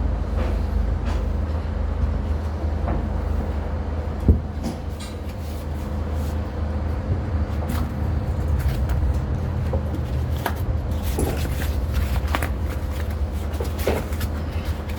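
Steady low engine drone, with scattered metal knocks and clanks from work on steel frame parts; one sharp knock about four seconds in, and a run of clanks near the end.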